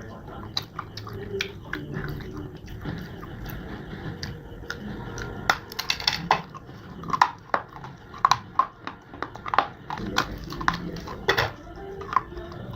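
Close-up crunching and chewing of hard, dry pieces of edible clay or slate, with irregular sharp crunches that come thicker and louder about halfway through.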